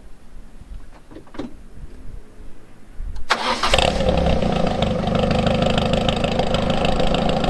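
Peugeot 206 with an aftermarket Magnaflow exhaust started warm: about three seconds in the engine cranks and catches with a brief flare, then settles into a steady idle through the new exhaust.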